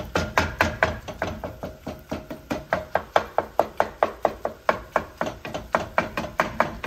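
Wooden spatula chopping ground beef against the bottom of a cast-iron skillet: a rapid, even run of knocks, about four a second, each with a short ring from the pan, as the browning meat is broken up.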